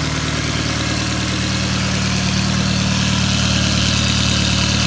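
2004 VW Jetta's turbocharged engine idling steadily, freshly rebuilt with a new cylinder head and copper head gasket, and now running well.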